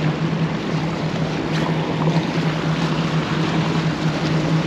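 Wind on the microphone and choppy bay water splashing against shoreline rocks, with a steady low hum underneath.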